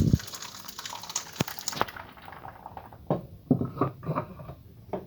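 Blended lemon and orange juice pouring through a mesh strainer, with a steady rush for about two seconds. After that come several short knocks and scrapes against the strainer.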